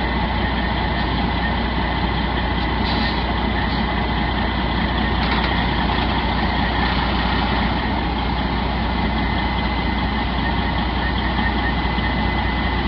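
Heavy tow truck's diesel engine running steadily under load as it slowly moves a mobile home into position, with a thin steady high whine over the engine.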